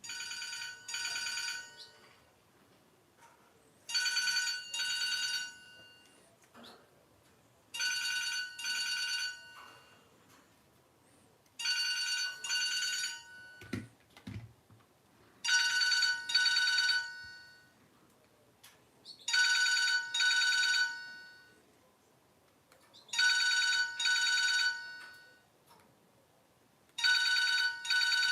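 Old mobile phone ringing with an electronic trilling ring: a double burst of warbling tones, repeated about every four seconds, eight times.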